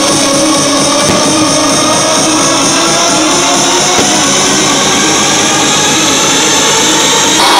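Loud amplified music playing over an outdoor stage sound system, getting louder just before the end.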